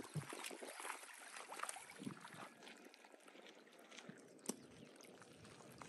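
Near silence: faint outdoor background hush with scattered small ticks and one sharper click about four and a half seconds in.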